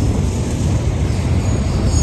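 Freight train of welded-rail cars rolling past close by: a steady, heavy rumble of wheels on the rails, with a faint high wheel squeal coming in near the end.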